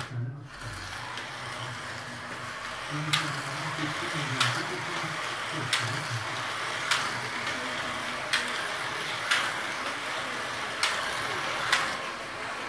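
Carrera slot cars running around a track: a steady whir from their small electric motors, with a sharp click recurring about every second and a half.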